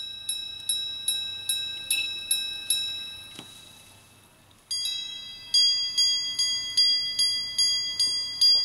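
Minute repeater watch chiming, its hammers striking the gongs and picked up through a small active amplifier and speaker. About eight evenly spaced ringing strikes on one gong come first. After a short pause, a louder series of strikes in a different tone begins.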